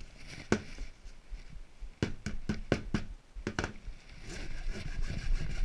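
Wood being sanded by hand: a string of sharp knocks, one about half a second in and a quick cluster between two and four seconds in, then a steady scratchy hiss of sanding from about four seconds in.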